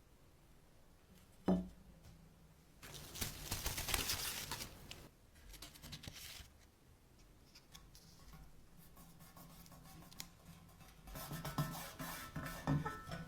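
Hand work on the metal parts of a vintage cash register: a single knock, then a couple of seconds of scraping, and more scraping with small metallic clinks near the end.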